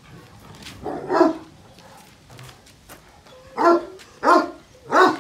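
Dogo Argentino barking at a rope tug toy held in front of it: one bark about a second in, then three in quick succession near the end.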